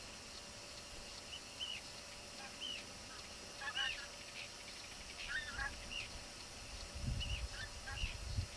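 Geese calling: short, high honks, scattered and now and then in quick clusters. A low rumbling noise comes in near the end.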